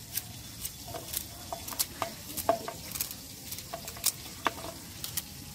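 Knife slicing a peeled hog plum (amra) by hand, thin slices dropping into a stainless steel bowl: irregular light clicks, some with a brief metallic ring.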